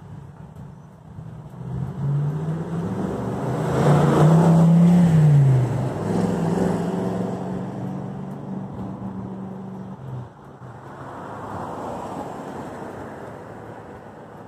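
A motor vehicle passing by out of sight: its engine hum rises and then drops in pitch about four to six seconds in, is loudest there, and carries on steadier until it fades about ten seconds in. A second, quieter passing swell follows near the end.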